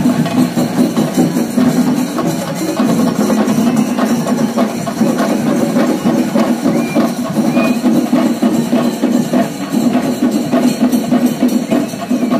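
Percussion music with fast, dense drumming in a steady driving rhythm.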